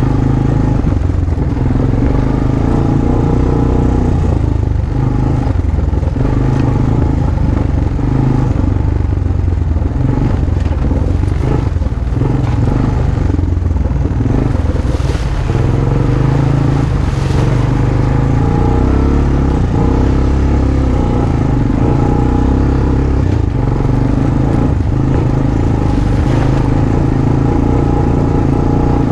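A Honda ATV's single-cylinder four-stroke engine running steadily while riding a trail. A few brief scraping sounds come over it about halfway through and again near the end.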